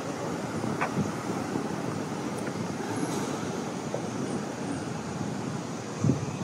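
Steady city traffic noise, with a few short knocks and a louder thump near the end.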